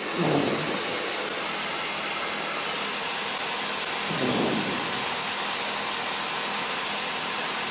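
Steady rushing hiss of a SportCruiser light-sport aircraft's cockpit in flight, as heard through the headset and intercom feed. Two faint, brief muffled sounds come through it, one just after the start and one about four seconds in.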